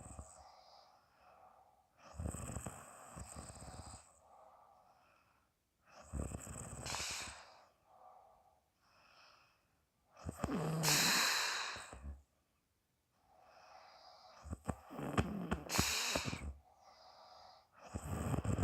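A woman snoring loudly in her sleep: rough, rattling snores alternating with breaths blown out through the mouth. Five breaths come about four seconds apart.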